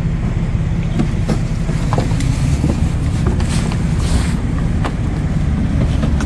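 A houseboat's motor running with a steady low hum. A few light knocks and a brief rustle about three and a half seconds in.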